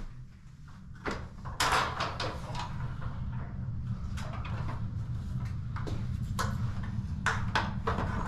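Return-air filter and grille being handled during a filter change: a series of knocks, clicks and rattles over a steady low hum.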